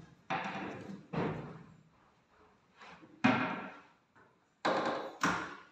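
Hinged doors of teak kitchen base cabinets, finished in Duco car paint, being swung and shut by hand: about six sharp knocks as the doors close against the cabinet frames, each ringing briefly.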